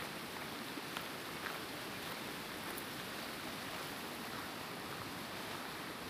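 Steady rushing of a fast-flowing alpine river in white-water spate, with a few faint footsteps on a gravel path.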